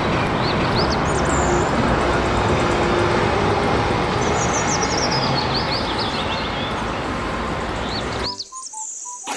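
Street traffic noise from a red London double-decker bus driving along the road, engine and tyre sound together, with small birds chirping over it. The noise cuts off abruptly about eight seconds in, leaving only a few faint short tones and a chirp.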